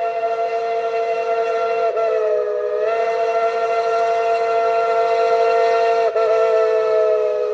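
Narrow-gauge steam locomotive's whistle blowing one long, steady blast, a chord of several tones at once that sags briefly in pitch about two seconds in and again about six seconds in.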